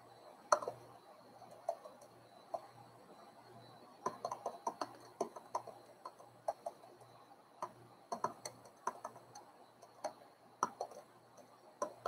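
Computer keyboard keys clicking in short, irregular runs of typing.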